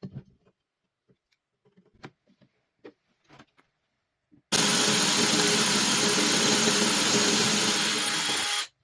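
A few faint knocks, then about halfway through a power drill starts and runs steadily, boring a candle-sized hole into a painted wood block, and stops abruptly just before the end.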